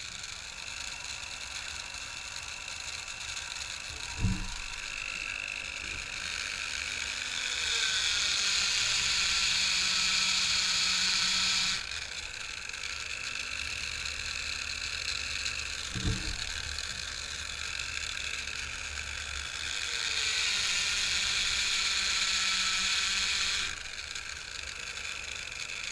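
An electric drill running steadily, spinning an RCBS primer-pocket crimp-removal tool. Twice, for about four seconds each, a .223 brass case is pressed onto the spinning cutter, and the sound grows louder and hissier as it cuts the military crimp out of the primer pocket. There is a sharp knock before each cut.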